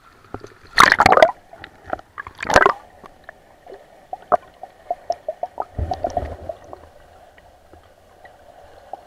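Action camera plunged into river water: two loud splashes about a second in and again around two and a half seconds, then gurgling and bubbling with many small clicks while under the surface.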